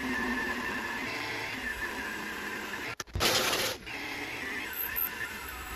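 Proxxon MF70 mini milling machine running, its end mill cutting an aluminium plate as the table is fed by hand: a steady whine with harsh cutting noise. The sound drops out for an instant about three seconds in, then a louder, harsher burst of cutting lasts under a second.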